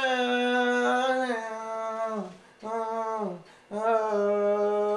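A man's voice humming or singing a wordless melody in three held phrases, each note steady in pitch and sliding down at its end.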